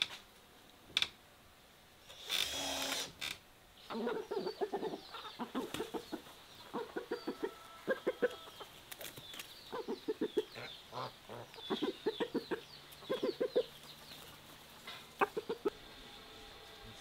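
Chickens clucking, a long run of short calls in quick clusters, after a couple of clicks and a short scraping noise in the first three seconds.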